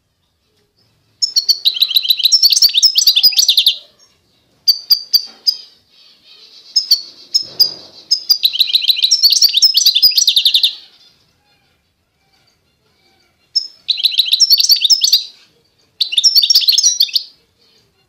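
A small cage finch singing in several short bursts of rapid, high-pitched twittering notes, with brief pauses between phrases.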